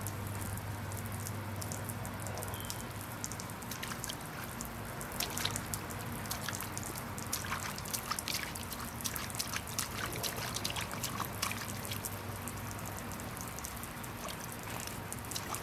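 Water from an inflatable octopus sprinkler splash mat spraying and pattering down onto the mat and grass: a steady trickling with many small irregular splashes.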